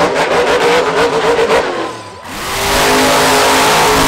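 Monster truck engine revving hard in quick blips. After a short dip about two seconds in, it is held at high revs.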